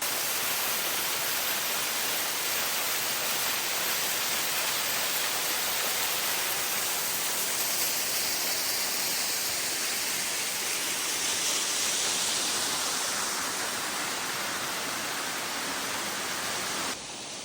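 Juney Whank Falls, a waterfall, falling with a steady rushing hiss of water that stops suddenly near the end.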